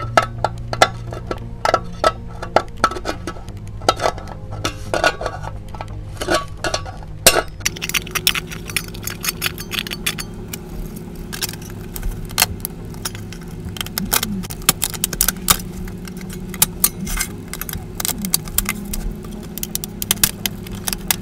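Thin tin-can sheet metal clinking and crinkling as its cut edge is bent over with pliers: an irregular run of sharp metallic clicks and taps.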